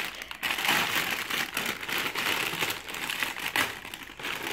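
Clear plastic packaging crinkling and rustling as it is pulled off a toy dump truck, almost continuously, with a brief pause near the start.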